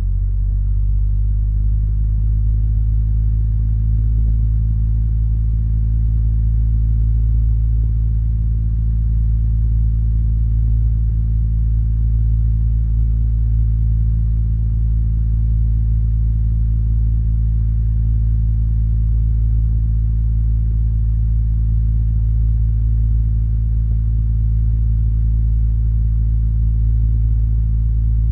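Electric fan running on a weak, quiet setting: a steady low hum with a few faint overtones above it, unchanging throughout.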